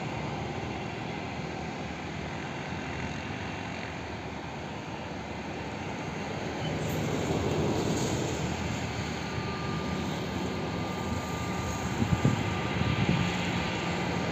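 Jet airliner engines running at low thrust as the aircraft taxi, a steady rushing noise with a low hum that grows louder about halfway through and a faint steady whine later on. A few short thumps come about twelve seconds in.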